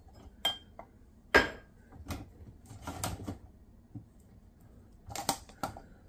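Plastic cups and dishes knocking against each other and the wire rack of a dishwasher's upper basket as a hand moves among them: a scatter of separate clicks and knocks, the loudest about a second and a half in and a quick cluster near the end.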